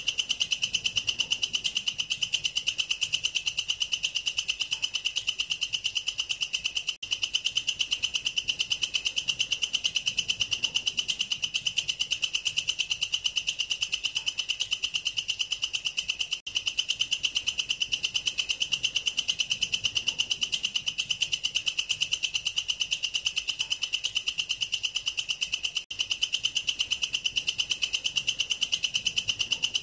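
Male katydid (bush cricket, family Tettigoniidae) singing: a loud, shrill, rapidly pulsed stridulation that keeps going, broken by very brief gaps about every nine seconds.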